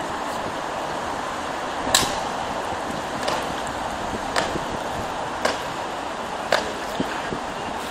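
Ceremonial guards' boots striking stone paving in slow marching drill: five sharp steps about a second apart, the first the loudest, over steady city traffic noise.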